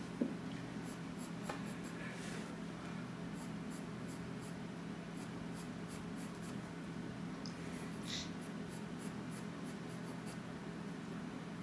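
Woodless charcoal pencil scratching softly on paper in short drawing strokes, over a steady low hum.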